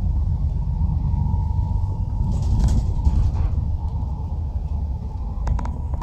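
Steady low rumble of a moving vehicle with a faint steady whine. A short hiss comes about halfway through and a few quick clicks near the end.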